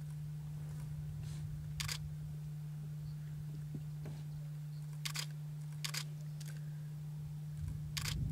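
Camera shutters clicking about five times at irregular intervals over a steady low hum.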